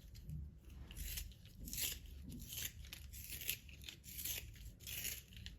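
A colored pencil being sharpened by hand in a small pencil sharpener: a series of short, dry rasping strokes, one or two a second, as the blade shaves the wood.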